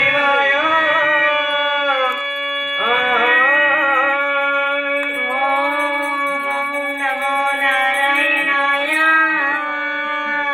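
Live stage-drama music: a voice singing a melody with bending, ornamented glides over a steady held drone.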